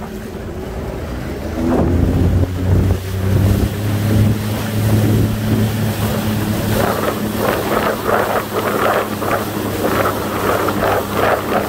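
Jet ski's Rotax engine running at low speed and picking up pace, a steady hum. From a little past halfway the hull slaps through the chop in a quick run of splashes, about two or three a second, with wind on the microphone.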